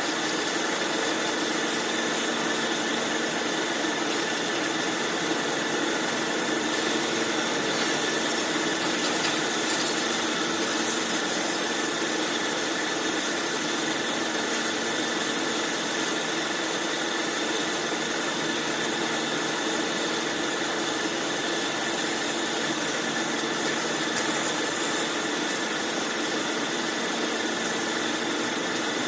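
Bandsaw machine running steadily, a constant hum and whine with no starts or stops.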